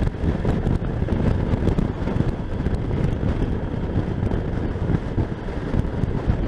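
Motorcycle on the move: the engine running steadily under heavy wind noise on the microphone.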